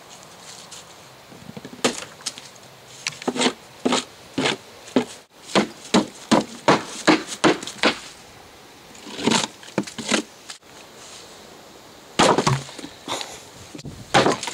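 Apples being smashed with a hammer on a wooden board: a series of sharp wooden whacks, a quick run of about three blows a second in the middle, then a few more single blows.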